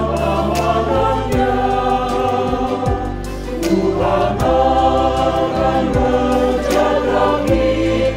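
A mixed choir singing a gospel anthem together, over an accompaniment with a bass line and a steady drum beat.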